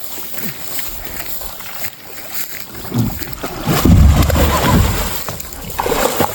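Water splashing and sloshing around a kayak on a creek, with a loud low rumble on the microphone from about three to five seconds in.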